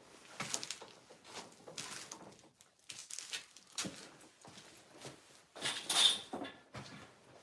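Irregular rustling, scraping and clicking of objects being handled, the loudest about six seconds in.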